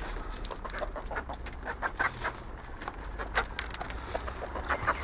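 Several chickens clucking, a quick scatter of short clucks overlapping one another.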